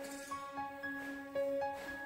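Quiet instrumental background music: a simple melody of held notes that change every half second or so.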